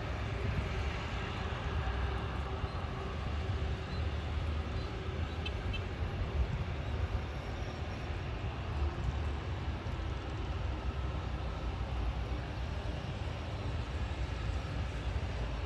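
Steady low rumble of a Boeing 777's twin jet engines heard from a distance across the airfield.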